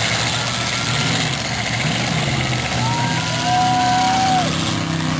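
Demolition derby cars' engines running with a steady low drone. A two-note tone is held for about a second and a half just past the middle.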